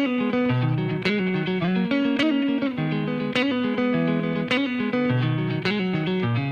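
Background music: an instrumental song intro of picked guitar-like notes over a steady pulse, with no vocals.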